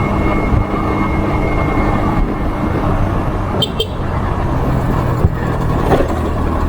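Motorcycle engine running and road noise while riding at speed, with two short high beeps about three and a half seconds in.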